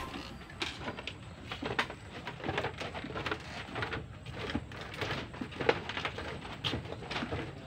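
Footsteps on a walkway of bamboo slats, with irregular creaks and clacks as the bamboo flexes underfoot.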